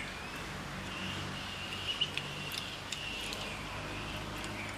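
Quiet rural outdoor ambience with a faint, high, steady animal call and a few light clicks.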